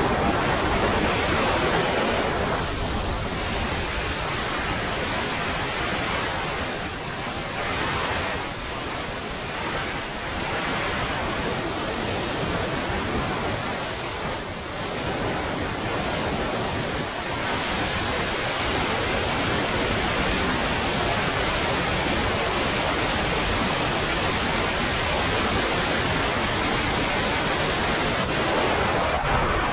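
Freefall airflow rushing over a skydiver's camera microphone: a steady, dense wind noise that dips slightly a few times and picks up again.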